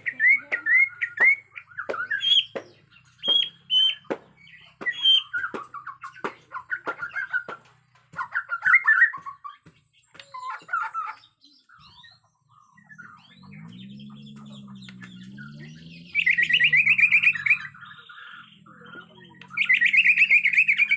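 Bornean white-rumped shama (murai batu) singing in a fired-up, aggressive state. For about the first ten seconds it gives quick, varied whistled phrases with sharp clicks between them. Later come two loud, fast rattling trills, over a low hum that rises and falls.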